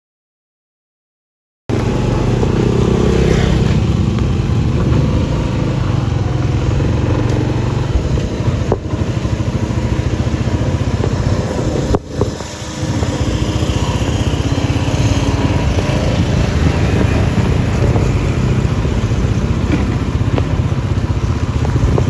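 Engine of a moving vehicle running steadily, with wind rushing over the microphone, starting after a second and a half of silence and dipping briefly about twelve seconds in.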